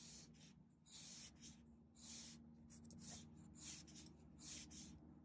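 Light blue coloured pencil shading on sketchbook paper: faint, repeated scratchy strokes, about two a second.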